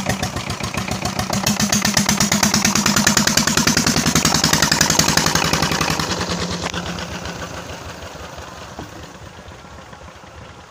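Petter single-cylinder diesel engine running with a rapid, even chugging of its firing strokes, just after its nozzle plate was fitted. It grows louder to about halfway, then fades steadily over the last few seconds.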